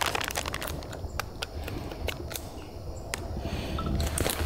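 Scattered sharp clicks and light rustling as a trail camera and its parts are handled and set up by hand.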